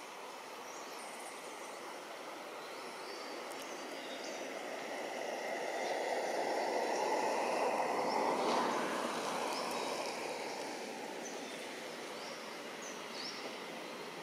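A vehicle passing by: a rushing noise swells over several seconds, peaks a little past the middle, then fades away. Faint short bird chirps sound throughout.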